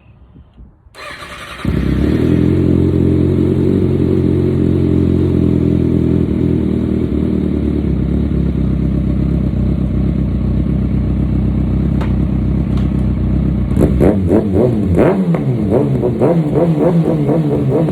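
Kawasaki ZX-6R's inline-four engine starting up about a second and a half in, then idling steadily. Over the last few seconds it is revved in a series of quick blips that rise and fall.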